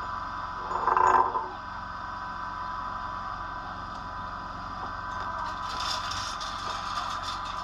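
Engine of an engine-driven welding generator running steadily, with a short louder sound about a second in.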